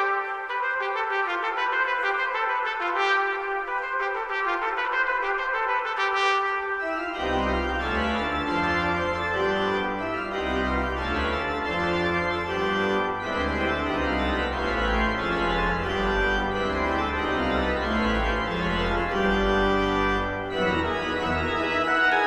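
Trumpet and organ playing a requiem movement. About seven seconds in, a deep bass and fuller, faster-moving chords come in.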